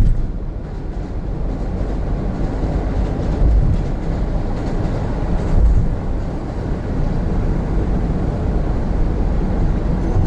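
Steady low road and engine rumble inside the cabin of a 2017 Honda N-BOX Custom with a 660 cc turbo engine, driving along.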